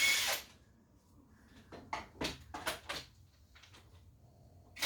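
Tools and engine parts being handled during an engine strip-down: a short scraping rustle at the start, a few sharp clanks about two to three seconds in, and another scraping rustle at the end.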